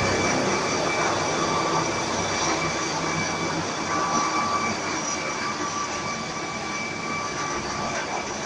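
Air ambulance helicopter flying overhead and moving away: steady turbine whine over rotor and engine noise, slowly fading.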